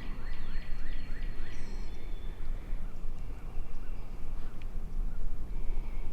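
Steady low wind rumble on the microphone, with a bird calling a quick run of about six short notes in the first second and a half, then a few fainter chirps.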